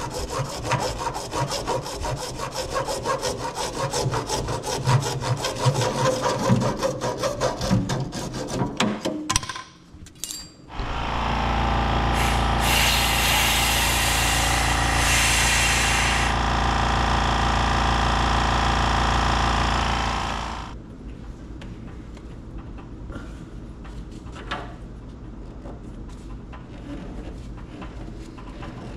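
A hand saw rasping back and forth through plastic water pipe for several seconds. After a short pause, a Husky portable air compressor runs steadily for about ten seconds, with a brighter hiss of air for a few seconds in the middle, then stops, leaving only faint handling.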